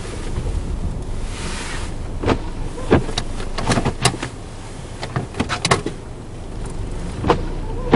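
Blizzard wind buffeting a stopped vehicle, a steady low rumble with a gust of hiss about a second and a half in, and a scatter of irregular sharp clicks and taps through the middle.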